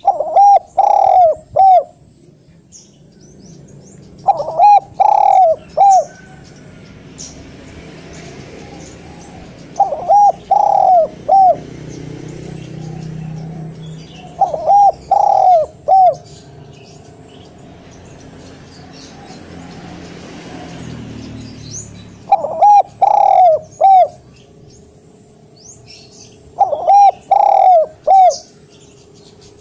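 Spotted dove cooing: six phrases of about four notes each, every phrase lasting a second and a half to two seconds, repeated every four to seven seconds.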